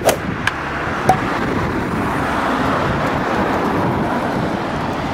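Street traffic noise: the steady rush of cars passing on a city street, swelling in the middle. A few short clicks come in the first second.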